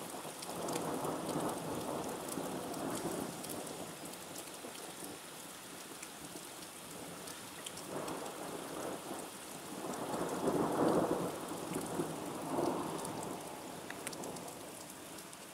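Rain falling steadily but easing, pattering onto wet ground, with thunder rumbling twice: a roll about half a second in and a longer, louder one from about eight seconds in, strongest around eleven seconds.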